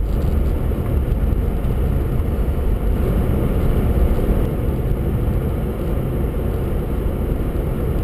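Steady low engine and tyre noise heard from inside a car's cabin as it drives slowly over snow-covered streets.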